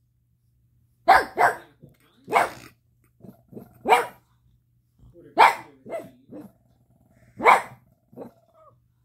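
A dog barking repeatedly at the TV in short, sharp barks: a quick pair about a second in, then single barks a second or two apart, with softer barks between.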